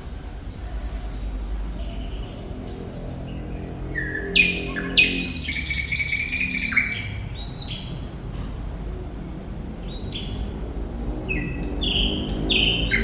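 Thrush nightingale singing: bursts of sharp, clear whistled notes and rapid stuttering phrases, one run starting about three and a half seconds in and another from about ten seconds, with a short gap between.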